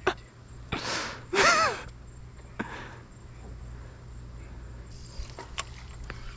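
A man's breathy gasp and then a drawn-out, wavering wordless exclamation of amazement, about a second in. After it, a low steady hum with a few faint clicks.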